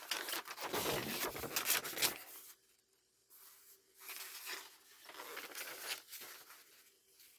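Paper pages of a printed booklet rustling and rubbing as they are leafed through, loudest in the first two seconds, then softer, scattered rustles.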